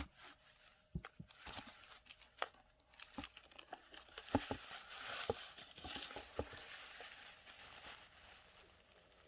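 Packaging crinkling as it is handled, with scattered light taps and clicks; the rustling grows denser in the middle and then dies away.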